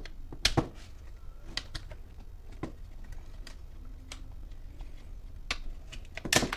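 Scattered sharp plastic clicks and snaps of a hair dryer's housing being pried apart by hand, its trim strips and snap latches popping loose.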